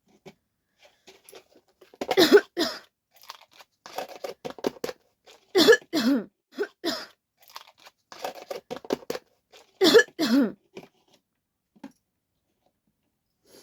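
A person coughing on purpose, in three loud bouts of two or three coughs each, at about 2, 6 and 10 seconds in, with smaller coughs and throat noises between. The coughs are put on for the challenge, not caused by a cold.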